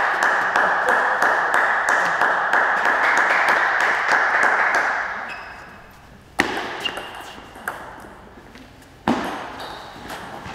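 Clapping from teammates and spectators for about five seconds, fading out, followed by a few single sharp knocks of a table tennis ball.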